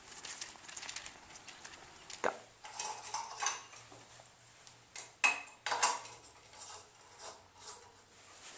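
Light clicks and clinks of handling, with a few sharp knocks, as compact fluorescent bulbs are handled and screwed into a floor lamp's sockets.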